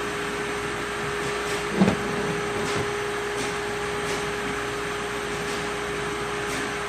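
Steady mechanical hum with a constant tone, and a single knock about two seconds in.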